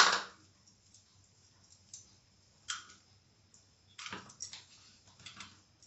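A small plastic bowl set down on a stone counter with one sharp knock, followed by scattered light clicks and clinks from bangled hands and fingers against a steel bowl while spice paste is rubbed into mackerel.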